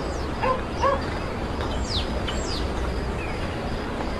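Steady low town rumble, with two short dog barks in the first second and a few quick, falling bird chirps around the middle.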